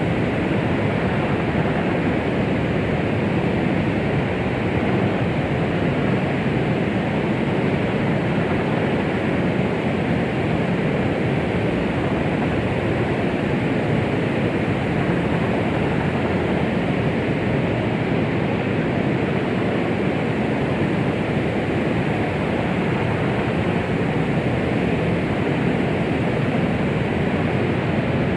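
Continuous white-noise track for soothing a baby: a steady, unbroken hiss, fuller in the low and middle range and fading out in the highest treble, with no rhythm or change.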